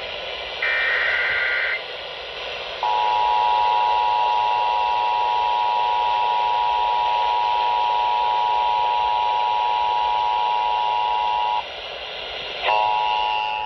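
Emergency Alert System relay over an AM radio broadcast, with steady static hiss throughout. A roughly one-second burst of warbling data tones (a SAME header) comes about half a second in. Then comes the two-tone EAS attention signal, a steady dual tone held for about nine seconds. It cuts off and another tone begins near the end.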